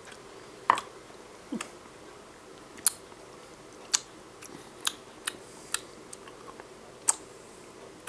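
About eight sharp clicks and taps at irregular spacing, a spoon knocking against a plastic mixing bowl.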